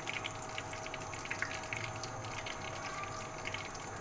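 Ghee sliding off a plate into a hot cooking pot, with a faint steady hiss and scattered light crackles.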